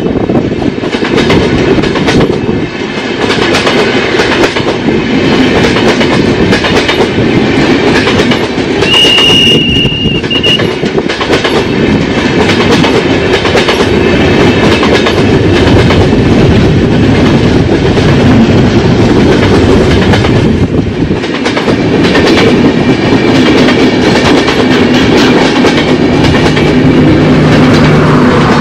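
Passenger coaches of an express train rolling past at speed: a loud rush with the rapid clickety-clack of wheels over rail joints, and a brief high wheel squeal about nine seconds in. Near the end a steady low hum comes in as a generator power car passes.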